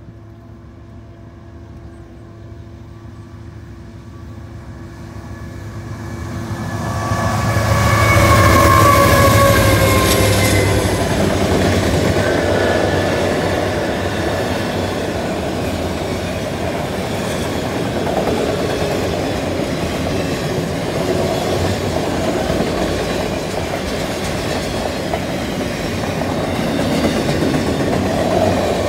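Freight train with two diesel locomotives approaching and passing, growing louder to a peak about eight to ten seconds in. A steady pitched note sits over the rumble as the locomotives near and ends as they go by, leaving the steady rumble and clatter of autorack cars rolling past.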